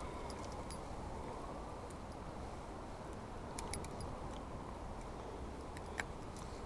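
Quiet outdoor background with a low, steady rumble, broken by a few faint clicks of fishing tackle as the rod and crankbait lure are handled, the clearest about six seconds in.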